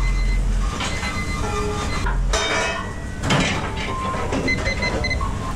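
Commercial kitchen din during service: a steady rumble from the range-hood extraction and gas burners under the clatter of pans and plates. A few short electronic beeps come near the end.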